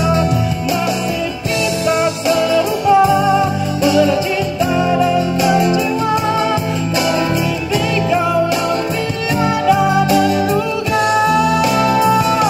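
A man singing a slow Malay pop song into a microphone, accompanied by a strummed acoustic guitar.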